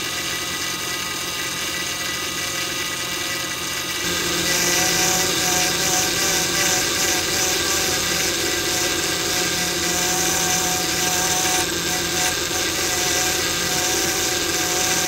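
Power steering pump on a 2006 Honda Pilot's 3.5 L V6 whining steadily with the engine running, growing louder and sharper about four seconds in. The noise persists after a new reservoir, O-rings and hoses, and is taken for a failing pump that needs replacing.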